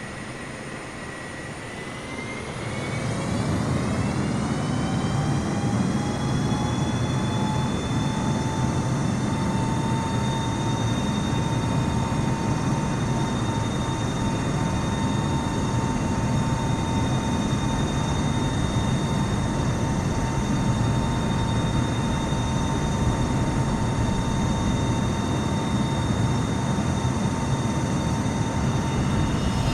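Jet airliner's engines spooling up to takeoff thrust: a whine that rises in pitch and gets louder about two seconds in, then holds steady over a heavy rumble.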